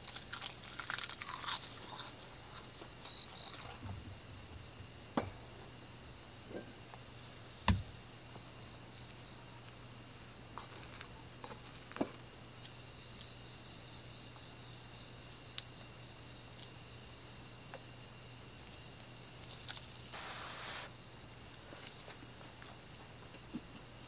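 Steady, high-pitched chirring of an insect chorus. Over it come a few scattered clicks and light knocks, with a short rustle about twenty seconds in.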